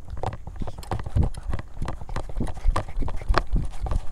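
Footsteps on an asphalt path, a few irregular thuds a second, mixed with low bumps from the handheld recording being jostled.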